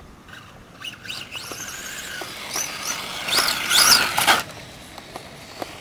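Radio-controlled cars racing past, their motors whining and sweeping up and down in pitch as they speed up and slow down, loudest around the middle.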